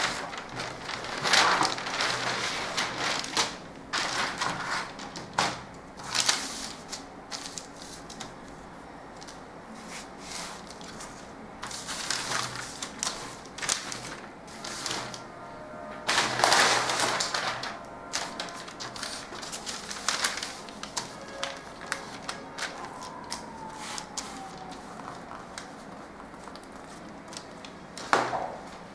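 Large sheets of brown pattern paper being handled, rustling and crinkling as they are laid out and slid across the table, with a few sharp taps and knocks between louder bursts.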